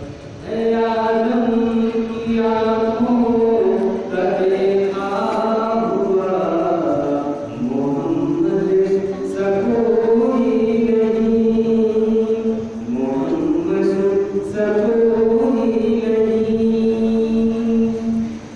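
A man singing a naat, an Urdu devotional song in praise of the Prophet Muhammad, unaccompanied into a microphone. He holds long notes and slides between them, with brief breaths every few seconds.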